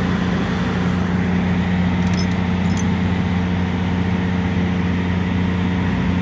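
A vehicle engine idling steadily, with a few faint clicks about two seconds in.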